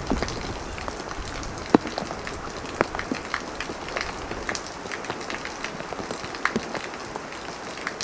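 Heavy rain falling steadily, with many irregular sharp taps and drips of drops striking nearby surfaces.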